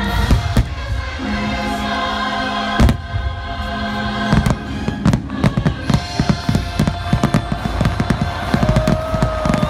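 Aerial fireworks shells bursting over choral show music; after about five seconds the bursts come thick and fast, a rapid string of sharp reports.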